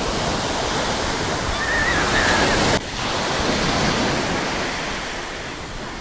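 Sea surf breaking and washing up a sandy beach: a steady rush of waves, with a sudden brief dip about three seconds in.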